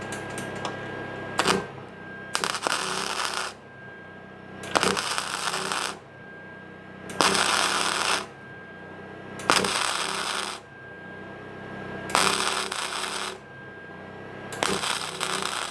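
Flux-core wire welder arcing in short bursts: six crackling welds about a second each, roughly every two and a half seconds, with pauses between, over a steady low hum. These are spot welds stitched along thin, layered sheet-metal seams too dirty to MIG weld.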